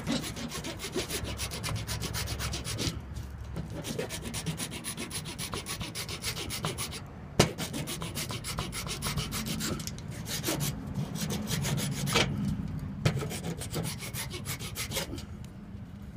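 Rapid back-and-forth sanding strokes on the edge of a plastic tech deck fingerboard, smoothing down the ridge left where a hole was melted through it for a bearing. The strokes come in fast runs with brief pauses, and there is one sharp tap about halfway through.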